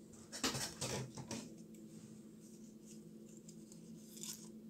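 Square origami paper rustling and crinkling as fingers fold and tuck the flaps of a modular star unit: a patch of rustling in the first second or so and a brief one near the end, over a faint steady hum.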